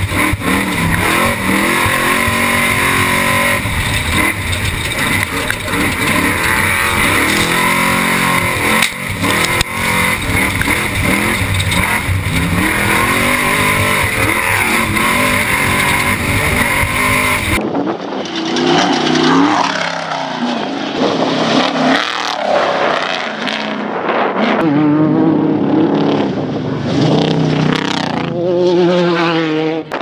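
Off-road race truck heard from inside the cab at speed: the engine revving up and down under a heavy roar of wind, tyre and chassis noise. A little over halfway through the sound changes abruptly to a race vehicle's engine heard from trackside, revving and rising in pitch several times as it races past.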